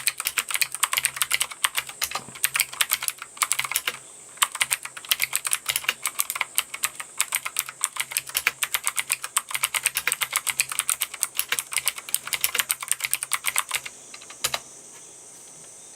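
Fast typing on a Martell MKF13 mechanical keyboard with blue clicky switches: a rapid run of sharp key clicks, with a brief pause about four seconds in. The typing stops near the end after a last couple of clicks, leaving a faint steady high hiss.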